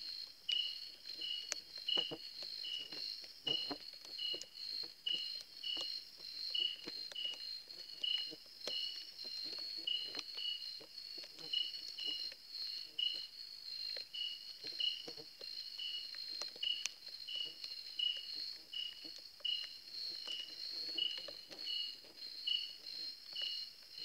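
Night insects calling in chorus. One keeps up a steady high-pitched trill, while another chirps in an even pulse a little under twice a second. Faint scattered knocks and rustles lie underneath.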